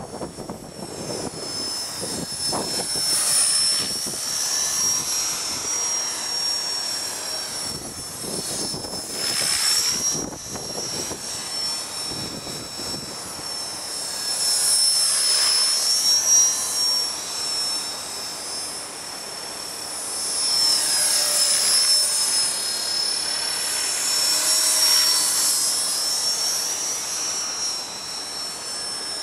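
HK-450 electric RC helicopter in flight: a high, steady motor and gear whine with rotor swish, swelling and fading as it moves about. Gusts of wind rumble on the microphone at times.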